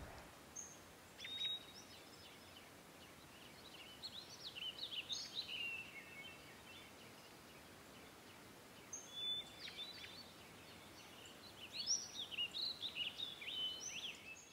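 Songbirds singing faintly in short bursts of chirps and quick whistled phrases, over a steady low hiss.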